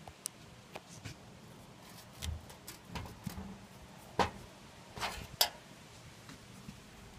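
Small clicks and knocks as a corked glass wine bottle is handled and its cork worked out of the neck, with a few sharper taps, the loudest about four seconds in and two more about a second later.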